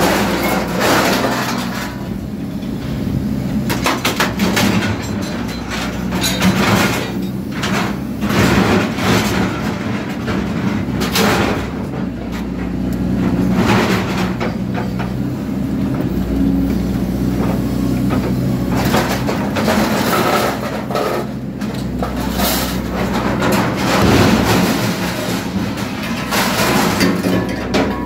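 Excavator's diesel engine running steadily under hydraulic load while its shear attachment crunches through roo bars, with repeated metal clanks and clatter as cut pieces fall into a steel skip bin.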